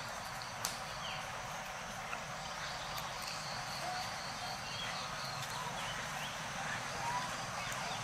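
Outdoor animal ambience: scattered short chirps and squeaks over a steady high drone, with a sharp click about half a second in and another about two seconds in.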